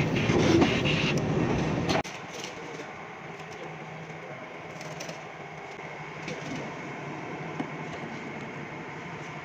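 CNC oscillating knife cutting machine running loudly on a polyester fiber acoustic panel. About two seconds in, the sound drops off suddenly to a much quieter steady machine hum with a faint whine.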